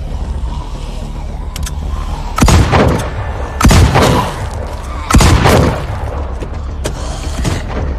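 Three loud gunshots about a second and a half apart, each with an echoing tail, over a low droning film score.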